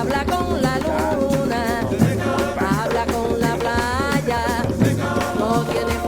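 Background music: a song with a singing voice over a steady percussive beat, Latin in style.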